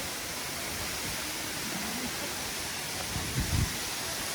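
Waterfall falling into its pool, a steady rushing hiss of water. About three and a half seconds in, a brief low thump stands out over it.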